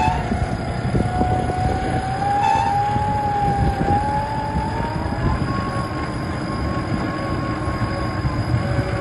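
Nissan Pathfinder engine held at high revs under load in soft sand, a steady whine that climbs a little in pitch about five seconds in, over a low rumble.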